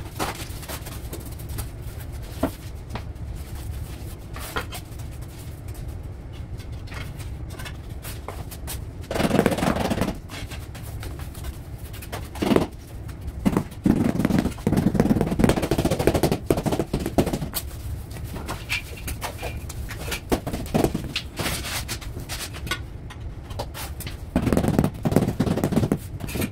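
Floor-tiling work noises: ceramic tiles and mortar being scraped and rubbed in three bursts, one short, one long and one near the end, with scattered sharp knocks and clicks in between.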